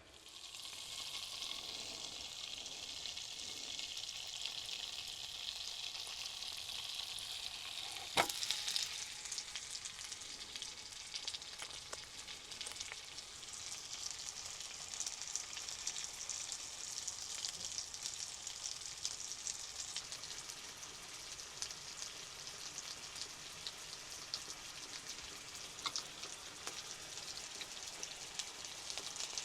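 Food sizzling steadily as it fries in a pan, with one sharp clink about eight seconds in.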